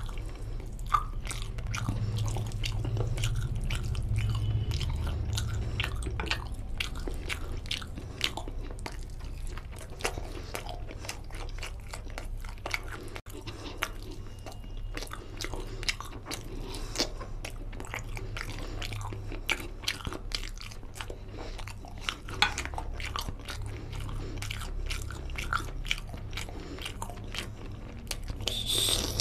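Chewing and wet mouth smacking of a man eating mutton curry and rice by hand: many quick smacks and clicks throughout, with a louder burst near the end.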